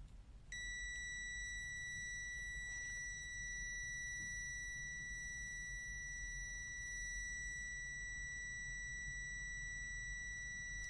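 CZD FS898 digital multimeter's buzzer sounding one continuous high-pitched beep. The beep starts about half a second in and holds steady, at about 72 dB.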